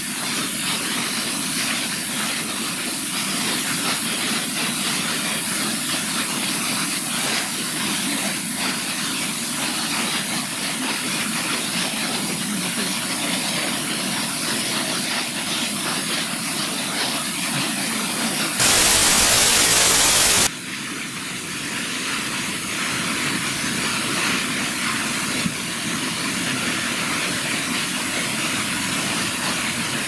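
Waterfall cascading down stepped rock ledges, a steady rushing of falling water. About two-thirds of the way through, a roughly two-second stretch of much louder, deeper rushing noise starts and stops abruptly.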